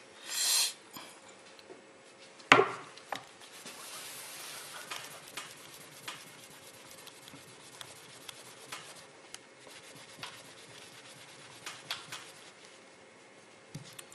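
Hand rubbing and polishing a cured GM-8300 metal repair putty test piece with a cloth and sandpaper: a faint, uneven scraping with small ticks. A short spray-can hiss comes about half a second in, and a single sharp knock about two and a half seconds in.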